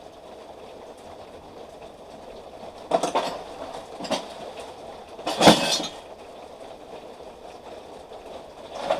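Pieces of scrap metal clattering and clinking as they are handled, in three bursts about three, four and five and a half seconds in, the last the loudest, over a steady background hum.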